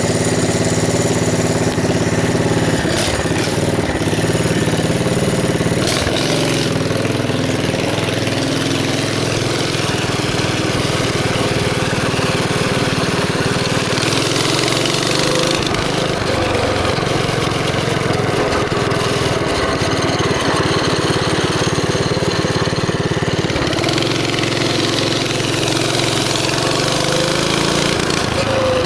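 Small single-cylinder mini bike engine running steadily, its pitch shifting slightly now and then.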